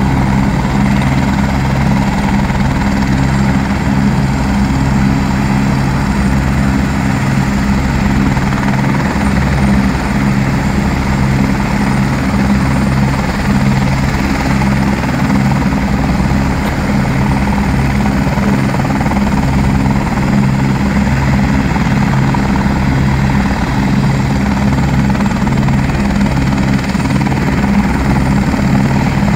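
Helicopter running on the ground with its rotor turning: a loud, steady low throbbing beat that does not change.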